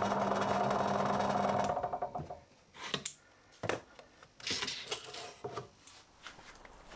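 Bench drill press running with a 35 mm Forstner bit in plywood, a steady hum that cuts off suddenly under two seconds in. Then a few scattered knocks and clicks as the plywood plate is handled.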